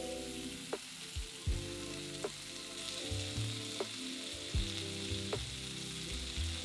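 Cubes of beef searing in hot oil in a frying pan, a steady sizzle. Background music with a steady beat plays underneath.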